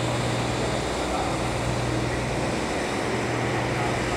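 Twin turbofan engines of a JASDF U-125 search-and-rescue jet in flight, heard as a steady rushing noise with a low steady hum underneath.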